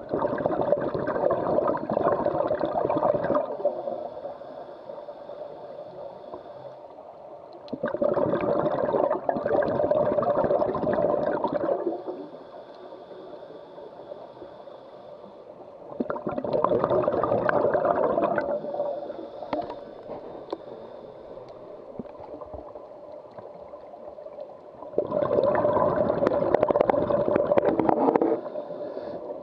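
Scuba diver's exhaled breath bubbling out of the regulator underwater, in four long bursts of a few seconds each, roughly every eight seconds, with a faint hiss in the quieter gaps between them.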